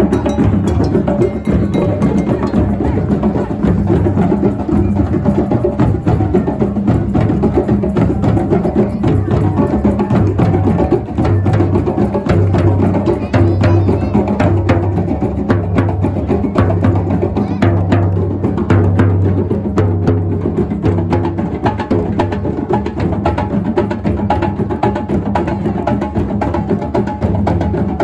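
Percussive music: steady drumming with dense, sharp clicks.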